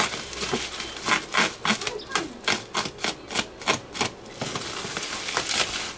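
Parcel packaging being torn open and unwrapped by hand: a quick run of sharp ripping and crinkling sounds, about three or four a second, giving way to steadier rustling for the last second or two.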